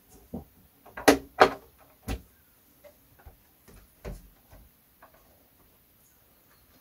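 Plastic knocks and clicks as a 1:10 RC car's polycarbonate body shell is lifted off its chassis and handled: two sharp knocks about a second in, another a moment later and one more about four seconds in, with lighter ticks between.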